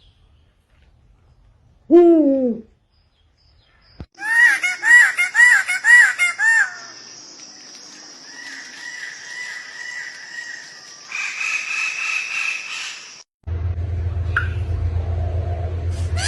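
Bird calls from separate recordings cut together. About two seconds in comes one short falling call. After that, a run of five quick rising-and-falling whistled notes, then fainter repeated notes over a steady high tone. After a sudden cut there is a low hum with a short call, and a rising call near the end.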